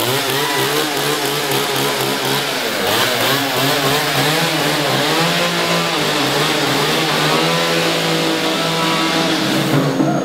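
Petrol chainsaw running at high speed, revving up and down, then held steadier partway through as it saws through a large printed board.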